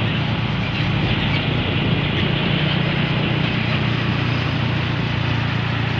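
Steady road-traffic noise from trucks driving along a highway: a continuous low engine hum under a hiss of tyres and wind.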